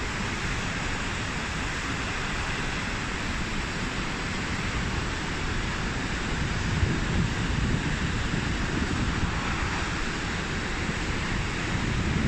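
Vernal Fall, a large waterfall, crashing onto the rocks at its base: a steady, dense rushing of water with a deep rumble underneath, a little louder near the end.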